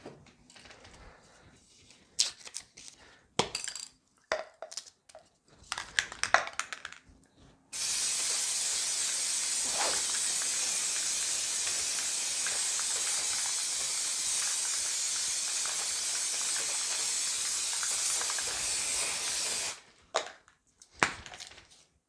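Aerosol spray-glue can spraying onto a Mylar sheet in one continuous hiss of about twelve seconds, which cuts off suddenly. Before it come scattered light clicks and rustles, and a few more clicks follow.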